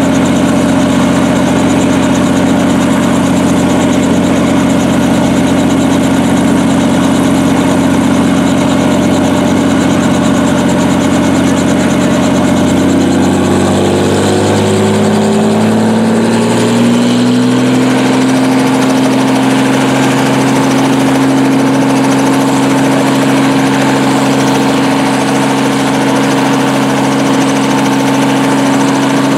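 Light helicopter running on its pad before take-off, a steady engine-and-rotor drone. Between about a third and halfway in its pitch glides to a new level over a few seconds as the rpm changes, then holds steady.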